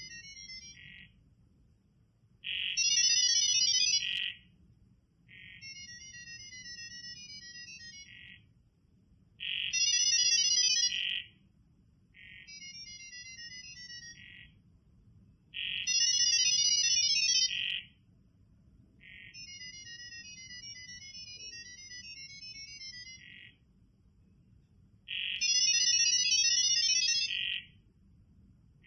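Two AI agents on a laptop and a phone talking in ggwave data-over-sound (Gibberlink mode): bursts of rapid, hopping high-pitched beeping tones, each a few seconds long, each opening and closing with a short steady tone. The two devices take turns, one louder than the other, and each burst carries a short text message.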